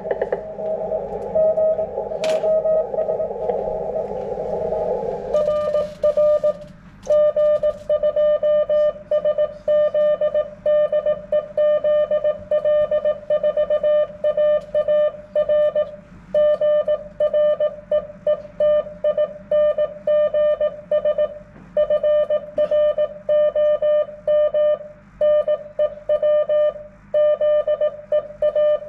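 Amateur HF radio Morse code (CW): first a hiss of receiver noise heard through a narrow filter. About five seconds in, the hiss cuts off and a clean single-pitched Morse tone keys on and off in a long, steady run of dots and dashes.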